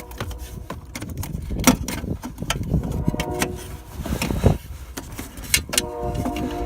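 Hands and tools working a mounting loose on a car, with irregular metallic clicks, knocks and rattles and some rustling.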